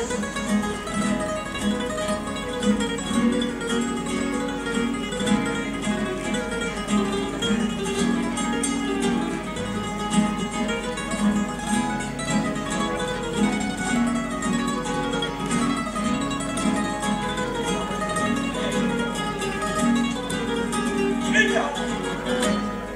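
Several Spanish guitars strumming a Cádiz-carnival-style tune, with a young boy singing the group's presentación.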